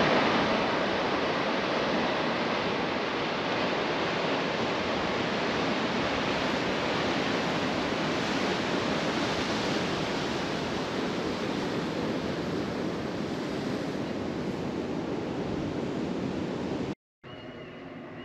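Ocean surf washing steadily against a rocky shore. It cuts off suddenly near the end, giving way to a much quieter outdoor background.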